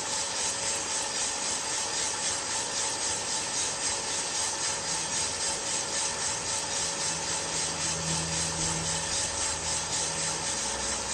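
Aillio Bullet drum roaster running with a charge of coffee beans tumbling in the rotating drum: a steady, rhythmic rustle over the fan. The beans are near the end of browning, just before first crack.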